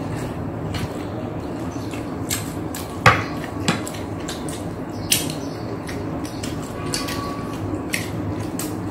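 Cutlery and plates clinking during a meal: scattered sharp clicks of a fork against plates, the loudest about three seconds in, over a steady low hum.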